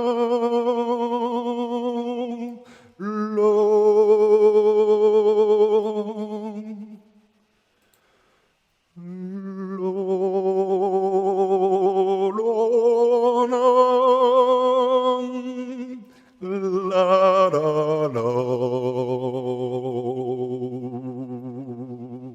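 A man's voice singing long held 'la' notes through the Vibra Voice vibrato effect, which adds an artificial vibrato in real time so that the pitch wavers evenly on each note. There are five or so notes of several seconds each with short breaks, a pause of about two seconds near the middle, and the last note drops to a lower pitch.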